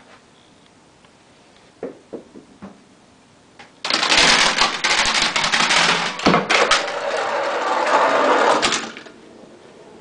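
A few light knocks, then from about four seconds in a loud, rapid clattering of hard objects that lasts about five seconds and stops suddenly: a home-made Rube Goldberg chain-reaction machine running, with its parts knocking and tumbling into one another.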